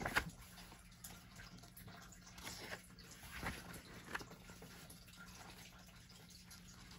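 Paper pages of a colouring book being turned and smoothed flat by hand: a few soft, short swishes and rustles over a faint steady hum.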